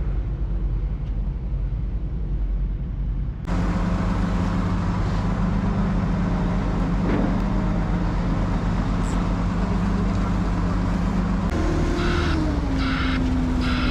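Heavy diesel vehicle engine running steadily, its pitch dropping briefly near the end. Near the end a pulsing hiss starts, repeating about one and a half times a second.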